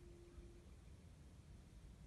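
Near silence: a faint low outdoor rumble, with a faint steady hum that stops about half a second in.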